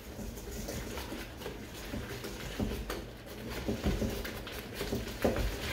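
Whisk beating eggs into flour in a mixing bowl: a quick, uneven run of soft clicks and taps against the bowl.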